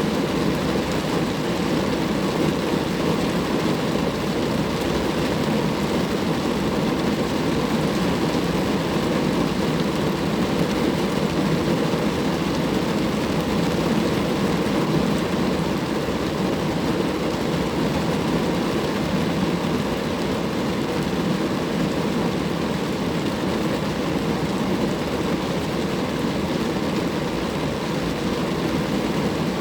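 Rain falling steadily on a car, an even, unbroken rush of drops with no letup.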